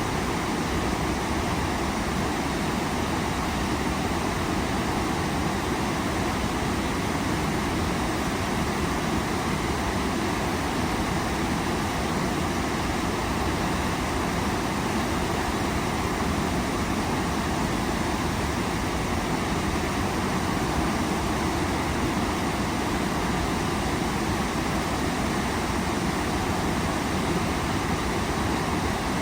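Waterfall: falling water rushing in a steady, unbroken noise.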